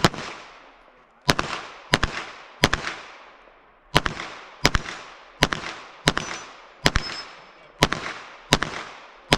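A string of about eleven single gunshots from a competition firearm, roughly one every two-thirds of a second with one longer pause after the third shot, each followed by a short echo.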